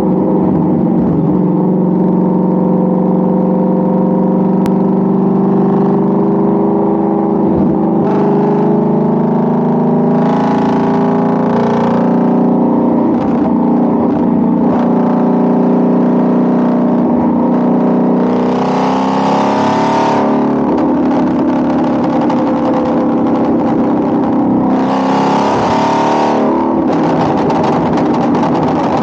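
Shelby GT350's 5.2-litre flat-plane-crank Voodoo V8, breathing through long-tube headers with the resonator deleted, running and being revved several times. Near the end comes a rapid crackle from the exhaust.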